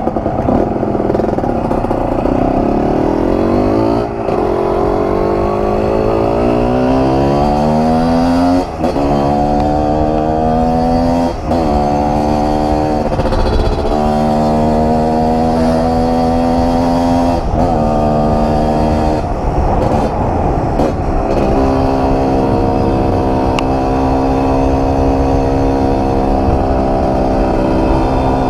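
Kawasaki KMX 125 two-stroke dirt bike engine under way, revving up and shifting through the gears, its pitch climbing and dropping back at each of several brief shifts. It settles to a steady pitch for the last several seconds.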